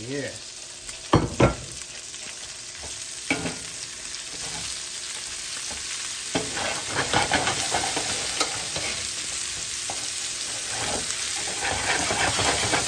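Sliced onions and scallions sizzling in hot rendered bacon fat in a stainless steel skillet, stirred with a metal spoon that scrapes and knocks against the pan. There are a few sharp knocks in the first few seconds, and the sizzle grows louder partway through.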